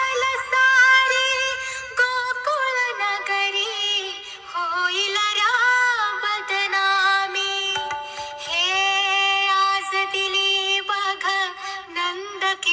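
Music: a woman singing a slow melody in long held, ornamented notes, with a low bass layer under the first two seconds only.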